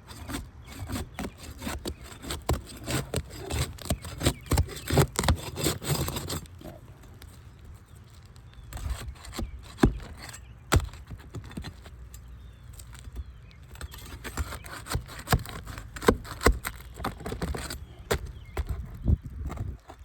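Laminated asphalt roof shingles being pried and worked loose by hand: rapid scraping and crackling for about six seconds, then scattered knocks and taps.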